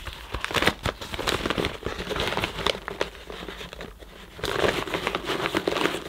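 Paper dust bag with a cardboard collar crinkling and rustling as it is handled and pushed into the canister of a Hooverette vacuum cleaner, with scattered clicks and scrapes of the collar against the rim. It grows louder about four and a half seconds in.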